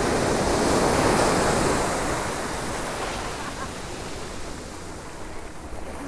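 Small ocean waves breaking and washing up the shore, a surge of surf loudest in the first two seconds that then eases to a softer hiss.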